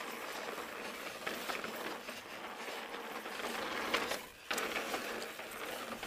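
Pivot Switchblade mountain bike rolling over a rocky dirt trail: steady tyre noise and mechanical rattle, with scattered light ticks, dropping away briefly a little past four seconds in.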